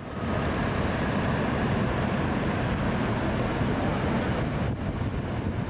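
Steady roar of Niagara Falls' falling water, an even rushing noise that holds level without rising or falling.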